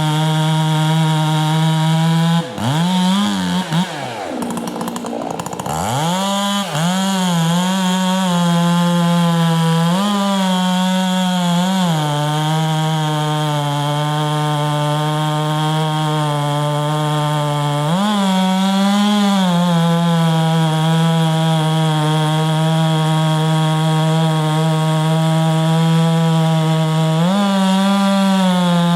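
Two-stroke chainsaw running at high revs through a cut into wood. Its engine note sags and swoops between about two and six seconds in, then holds steady with a few brief small rises in pitch.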